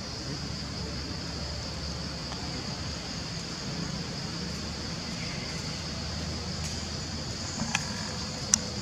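Steady forest ambience: a constant high insect drone over a low rumble of wind or distant traffic, with two sharp clicks near the end.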